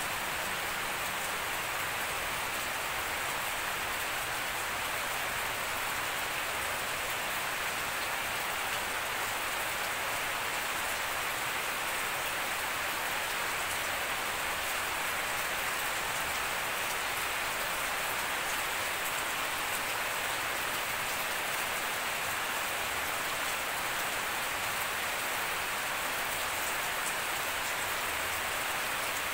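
Steady rain falling on a garden lawn, trees and puddles: an even, unbroken hiss of rain.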